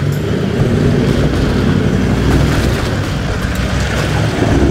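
Toyota LandCruiser 79 series engine running under load as it crawls through a muddy rut, with tyres working through wet mud; it grows a little louder near the end as it passes close by.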